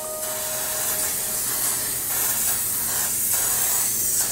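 Aqua Net hairspray aerosol can spraying in one long, continuous hiss.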